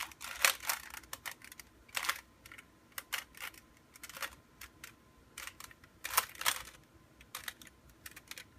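Rubik's Cube being turned by hand: an irregular run of plastic clicks and clacks as its layers rotate, with a few louder snaps about half a second in and about six seconds in.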